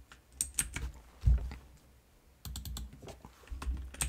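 Typing on a computer keyboard: several short runs of key clicks with brief pauses between them.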